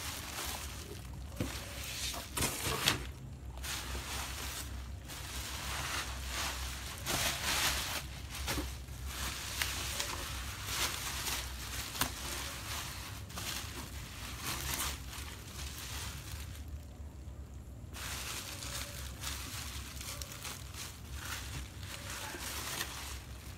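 Bubble wrap crinkling and rustling in irregular bursts as gloved hands unwrap it, with a brief lull about two-thirds of the way in.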